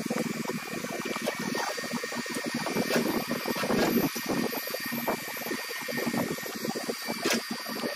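Steady machine running noise, a dense whirring hiss, with a few sharp clicks.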